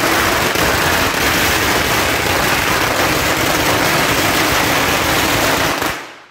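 A long string of red paper firecrackers going off in a loud, rapid, continuous crackle that fades out near the end.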